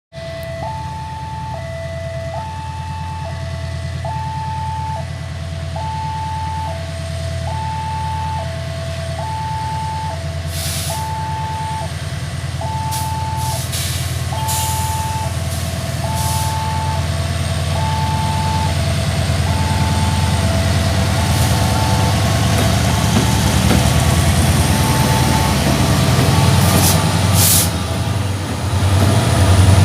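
Railway level-crossing warning alarm sounding a steady two-tone alternating signal, fading as the heavy diesel rumble of an approaching locomotive grows steadily louder, with a few short bursts of hiss.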